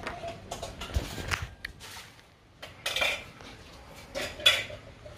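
Scattered sharp clinks and knocks, like dishes or metal utensils clattering, at irregular intervals; the loudest comes about four and a half seconds in.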